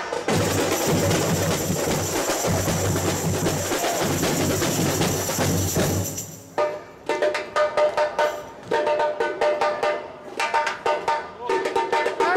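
Samba school bateria playing together, the surdo bass drums beaten with mallets under the higher drums and percussion. About six seconds in the bass drums stop and only sharp, higher-pitched drum strokes carry on in a break.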